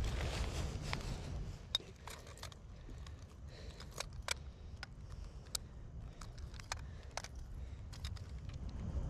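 Metal pliers clicking and jingling against a swimbait's hooks as the lure is worked out of a bass's mouth: a scatter of sharp, irregular clicks, the loudest about two seconds in, over a low rumble of handling noise.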